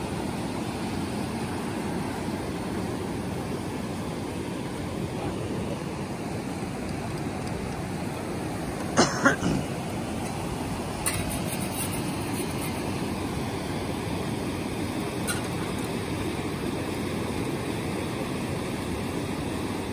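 Fast river rapids rushing steadily, with a brief louder sound about nine seconds in and a few faint ticks after it.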